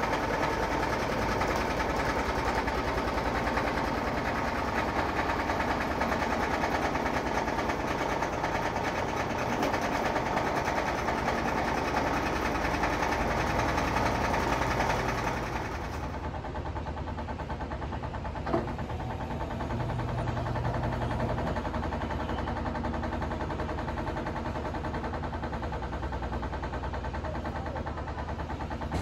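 Top-loading washing machine running steadily on newly fitted suspension rods. About halfway the sound abruptly becomes duller and quieter, and a single click follows a couple of seconds later.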